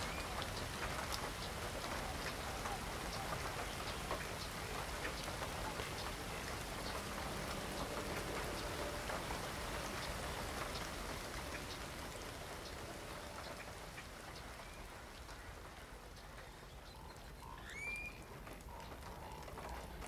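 Steady rain falling on water and marsh vegetation, a dense patter of drops that eases off in the second half. A single short bird call comes near the end.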